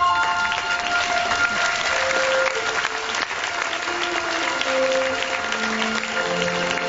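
Audience applauding over instrumental background music with held notes.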